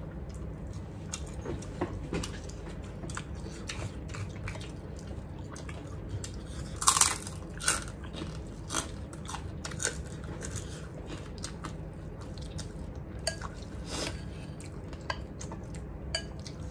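People chewing food close to the microphone, with scattered sharp clinks of a spoon and dishes; the loudest are two clinks close together about seven seconds in.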